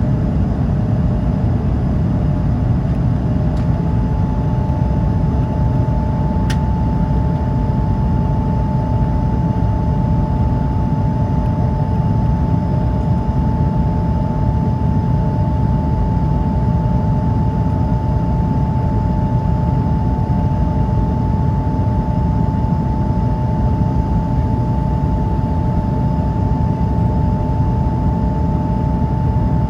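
Cabin noise of an Airbus A220-300 in the climb: a steady rumble of airflow and its Pratt & Whitney PW1500G geared turbofan engines, with a steady hum running through it. A faint click sounds about six seconds in.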